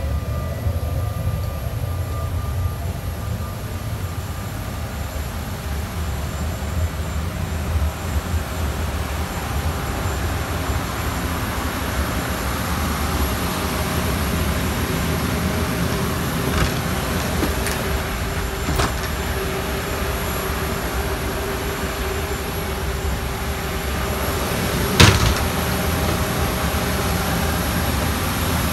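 Steady low rumble and hiss of a parked airliner's cabin, with a few light clicks and one sharp knock about 25 seconds in.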